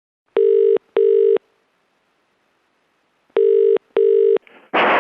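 Telephone ringing tone heard down the line by the caller: two British-style double rings, 'ring-ring', about three seconds apart. A voice answers right at the end.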